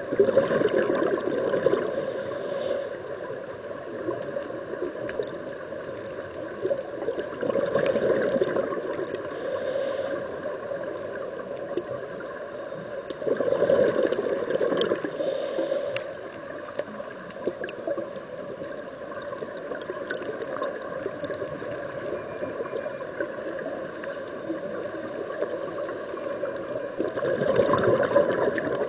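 Scuba regulator breathing heard underwater: several loud bursts of exhaled bubbles gurgling up, with fainter hissing inhalations between, over a steady watery hiss.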